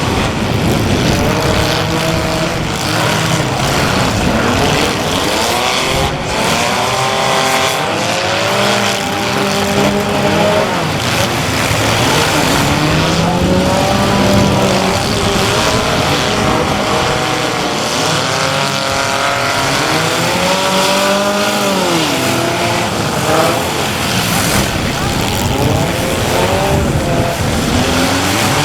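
Several compact demolition-derby cars' engines revving hard together, their pitches repeatedly rising and falling as the drivers accelerate and back off.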